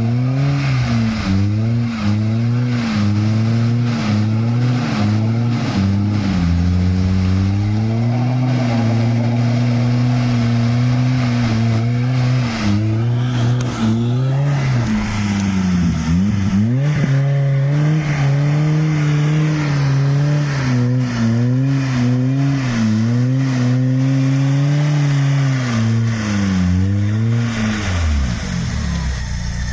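Lada Niva's engine revving hard under load in mud, its pitch rising and falling unevenly, with a deep dip and climb about halfway through and the revs dropping away near the end.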